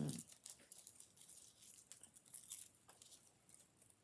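Soft rustling and light scattered clicks of stitched fabric and a stitching hoop being handled and moved about.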